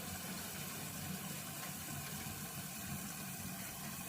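Water hissing steadily, with a low hum underneath.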